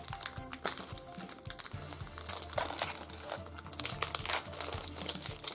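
Crinkling of Yu-Gi-Oh! foil booster packs being handled and pulled from the box, in irregular crackles, with background music underneath.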